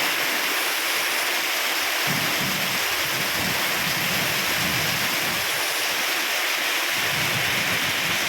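Strong, typhoon-like storm wind blowing in a steady rush, with low rumbling gusts buffeting the microphone from about two seconds in and again near the end.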